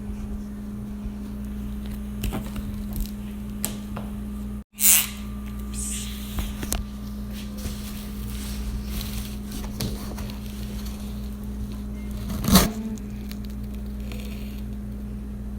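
Cardboard and plastic packaging crackling and rustling as a microwave oven is pulled from its box, over a steady low hum. There is a loud burst of rustling about five seconds in and a sharp knock about twelve and a half seconds in.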